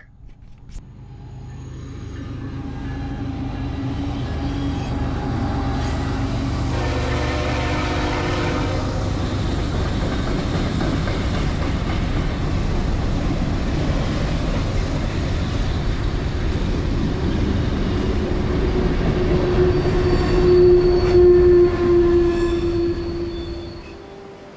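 Train passing close by: its rumble builds over the first few seconds and holds steady. A horn sounds for about two seconds around seven seconds in, and a steady squeal-like tone rises over the noise at its loudest, before the sound drops away near the end.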